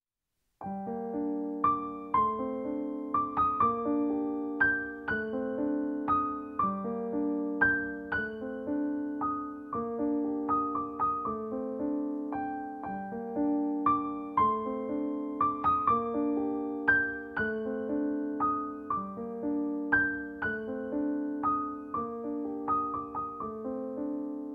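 Background piano music: a calm, steady run of struck notes and chords, each fading away, starting about half a second in after a moment of silence.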